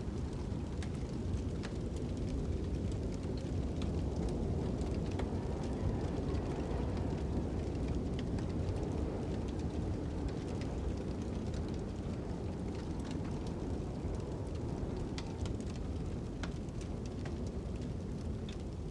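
Ambient fire-and-wind soundtrack: a steady low rumble of wind with sharp crackles and pops from a burning fire scattered through it.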